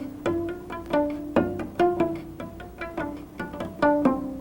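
A cello plays a quick run of single notes, each starting sharply and then fading, about two or three a second. The left-hand fingers lift off the string with a slight pluck to sound each lower note, which is the finger-plucking articulation used in descending passages.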